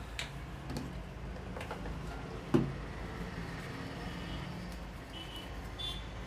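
Hands working during a head massage: a few light taps and one loud, sharp snap about two and a half seconds in, over a steady low background hum.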